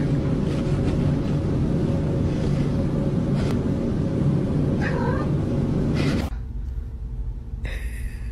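Domestic cat growling and yowling low and steadily, with a short, higher, wavering cry about five seconds in. The sound cuts off abruptly about six seconds in, leaving only a faint low hum.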